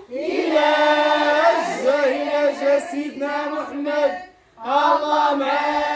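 Voices singing together in long held notes, breaking off briefly about four seconds in and then starting again.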